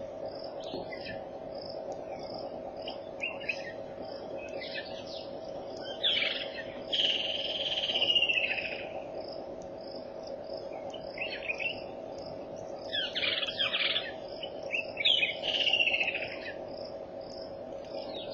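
Wild birds calling in curving, whistled phrases, loudest in the middle and again later, over a steady, regularly pulsing insect chirp and a constant low hum.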